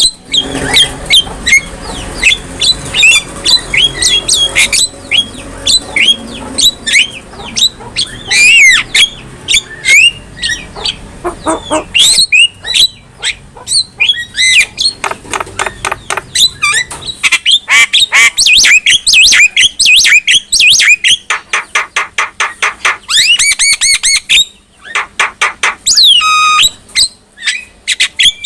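Javan myna singing: a long, varied stream of harsh squawks, chirps and whistles, with fast runs of repeated notes in the second half and a long falling whistle near the end.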